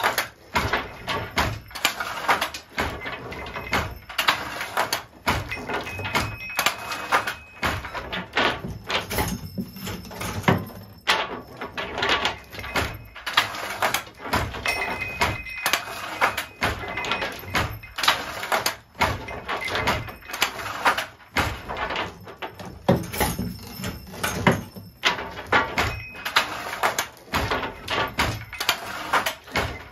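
Wooden handloom with a Jacquard machine weaving linen damask: a steady, busy run of wooden clacks and knocks from the working loom, with short high squeaks now and then.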